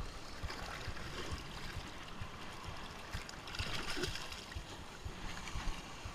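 Shallow seawater splashing and trickling around a hand as a sea bass is released into it, with a louder splash about three and a half seconds in.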